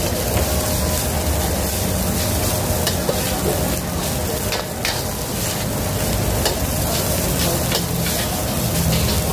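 Rice sizzling in a hot wok while a metal spatula and ladle stir and toss it, with a constant run of quick scrapes and clinks of metal against the wok.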